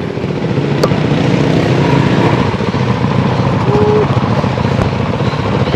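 Honda dirt bike engines idling together, a steady low rapid putter. A short voice sounds briefly about two-thirds of the way through.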